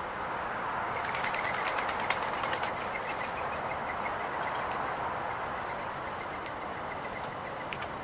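Small songbirds, a spotted towhee among them, pecking seed off a wooden picnic table: a quick flurry of sharp taps about a second in, then scattered single taps, over a steady background hiss.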